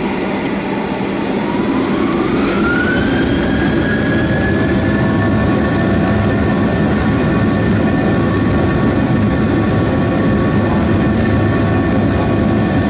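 Boeing 737-800's CFM56-7B jet engines spooling up to takeoff thrust, heard inside the cabin over the wing. A whine rises in pitch over the first few seconds and then holds steady over a low rumble as the engines reach takeoff power.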